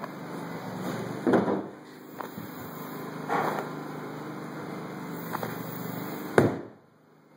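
Floor demolition with a long-handled demolition tool: a few heavy knocks and scraping crashes as it strikes and pries at the subfloor, the sharpest and loudest about six seconds in, over a steady hum.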